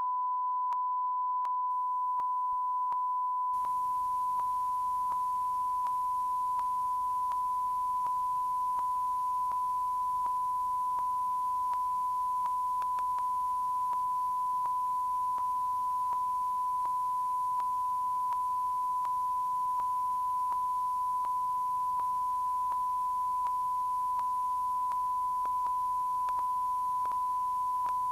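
Steady high sine tone of a television test-card transmission, one unbroken pitch, with faint hiss underneath that comes up about three seconds in.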